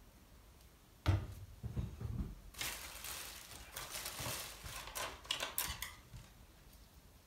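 Painting materials being handled on a table: a few low knocks about a second in, then a stretch of scratchy scraping and rustling with small clicks and taps, dying away near the end.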